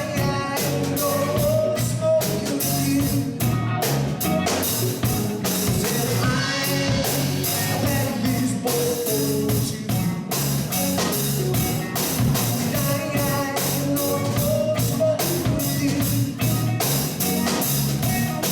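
Live rock band playing: electric guitars, bass guitar and drum kit at a steady, loud level.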